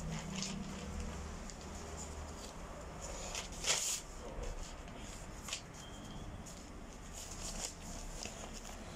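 Newspaper pages rustling and crinkling as the paper is handled and turned, in scattered short crackles, with the loudest rustle about four seconds in.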